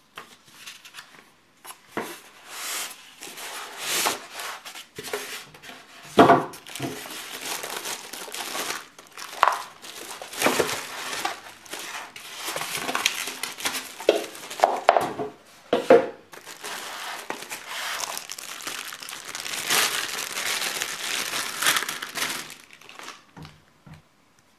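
Clear plastic wrapping on a new appliance crinkling and rustling as it is handled, in irregular bouts with a few sharper knocks and rubs of the packing.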